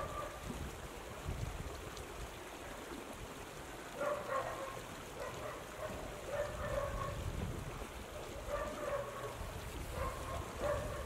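Outdoor ambience: a steady low rumble of wind on the microphone, under a pitched call that repeats several times, each lasting from under a second to about a second and a half.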